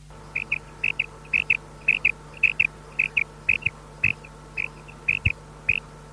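Female quail calling: a steady run of short, high double notes, about two pairs a second, over a faint low hum.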